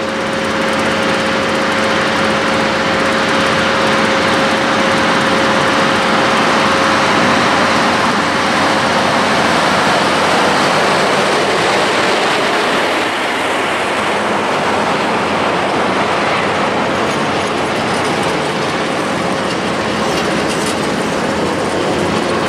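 A diesel locomotive with a freight train of open coal wagons passes close by. A steady engine drone as it approaches gives way, about halfway through, to the continuous rolling rumble and wheel clatter of the wagons.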